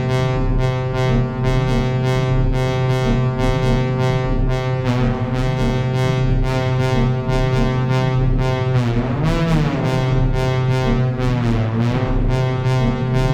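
Electronic techno playing: a sustained analog synth drone rich in overtones over a steady beat with regular hi-hat-like ticks. Twice, near the middle and again about two seconds later, an effect sweeps through the tone so that it wavers and swoops.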